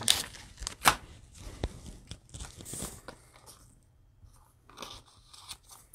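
Gloved hands handling glossy football trading cards and a torn cellophane pack wrapper: sharp ticks and crinkles as the cards are leafed through, the loudest about a second in, then softer rustling.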